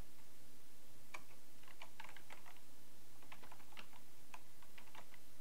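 Computer keyboard being typed on: irregular keystroke clicks in short quick runs with brief gaps between them, over a faint steady low hum.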